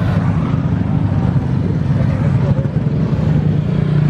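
Vehicle engines running with a steady low drone, as a motorcycle passes close by at the start.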